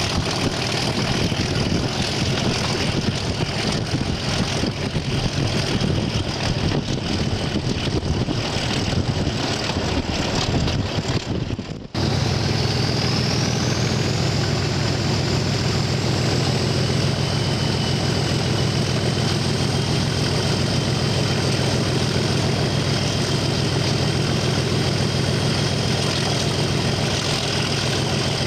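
Class 37 diesel locomotive's English Electric V12 engine running as it travels, heard from the nose of the locomotive with wind noise. The sound cuts out briefly about twelve seconds in and comes back steadier, with a high turbocharger whistle that rises and then holds.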